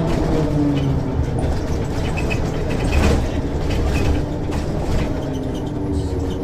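Ikarus 435 articulated diesel bus running in service: a steady low engine drone, with scattered clicks and knocks, the loudest about three seconds in.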